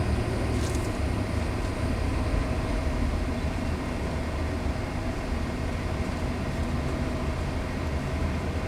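Car engine and tyre noise heard from inside the cabin while driving slowly, a steady low rumble.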